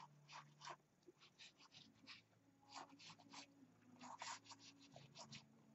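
Faint, repeated short scrapes of a palette knife drawn across an oil-painted canvas in horizontal strokes, laying white paint into water lines.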